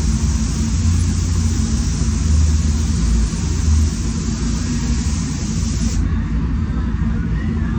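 Paint spray booth's ventilation fans running with a steady low rumble, under the hiss of a SATA Jet 5000 RP spray gun's compressed air, which cuts off about six seconds in as the trigger is released.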